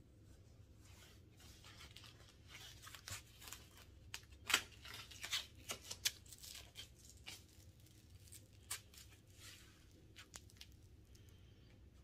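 Cloth boxing hand wrap rustling and scraping as it is wound around the hand and wrist, in a string of short scratchy rasps, the loudest about four and a half seconds in.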